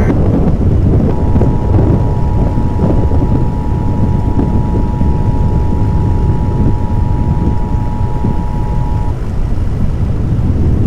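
Loud, continuous roar of tornado winds and heavy rain, with a deep rumble and wind buffeting the microphone. A steady high electronic tone comes in about a second in and stops about nine seconds in.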